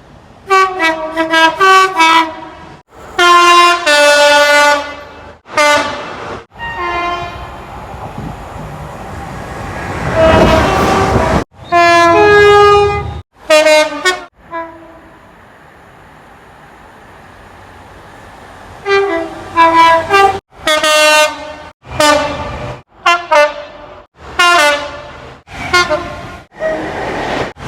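A rapid series of British train horn blasts from several different trains, many of them two-tone horns stepping between a high and a low note, cut one after another with abrupt breaks. About ten seconds in, the noise of a train passing swells up before the horns resume.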